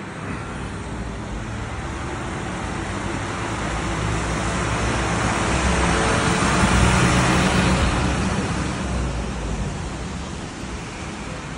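A road vehicle passing close by: engine and tyre noise swelling to a peak about seven seconds in, then fading away.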